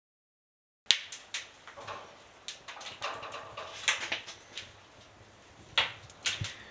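A second of dead silence, then scattered light clicks and knocks over faint room noise.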